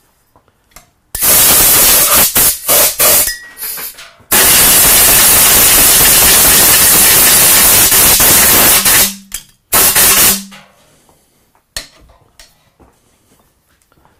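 Compressed-air blow gun blasting brass chips out of a lathe's four-jaw chuck: a few short bursts of hiss, then one long blast of several seconds, then a last short burst.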